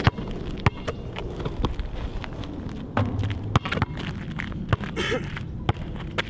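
A basketball bouncing on an asphalt court, with a player's footsteps: sharp, irregularly spaced thumps.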